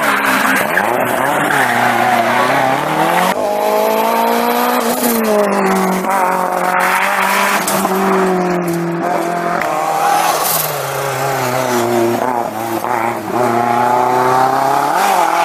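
Toyota Celica GT-Four ST185 rally car's turbocharged four-cylinder engine revving hard on a stage, the pitch rising and falling again and again through gear changes and corners, across several clips.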